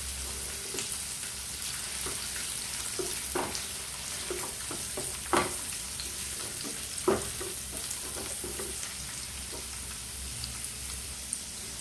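Diced carrot, capsicum and garlic sizzling in hot sunflower oil in a nonstick frying pan. A wooden spatula stirring them knocks and scrapes against the pan now and then, loudest about five and seven seconds in.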